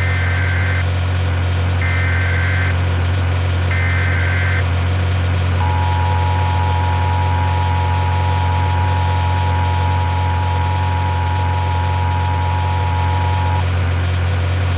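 Emergency Alert System broadcast tones: three short bursts of the warbling digital header data about two seconds apart, then the steady two-tone attention signal held for about eight seconds. Underneath, a constant low engine hum.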